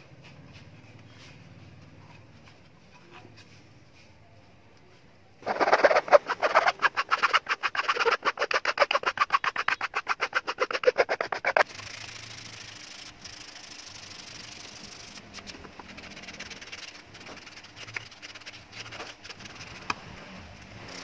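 Rapid back-and-forth hand-sanding strokes on the wooden handle of a table tennis blade, a dry rasping about eight strokes a second that starts a few seconds in and stops abruptly about six seconds later. Softer rubbing and small taps of the handle against the sanding pad follow.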